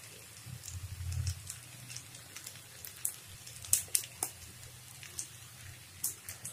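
Noodles frying in a hot wok, a faint sizzle with scattered sharp crackles and clicks, several close together three to four seconds in, as the spatula works the sauces through. A low steady hum runs underneath.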